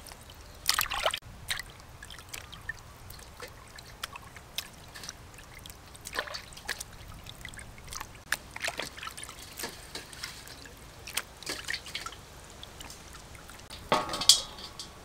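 Water splashing, sloshing and dripping in a steel bowl as hands wash a whole plucked chicken, in short scattered splashes. A louder splash and drip near the end as the wet chicken is lifted out of the water.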